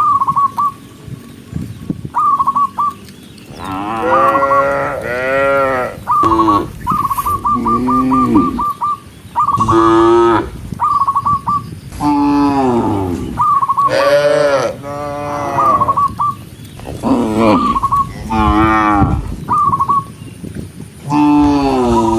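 Cows in a herd mooing again and again, one long call after another every second or two. Short high chirping notes repeat in quick runs between the moos.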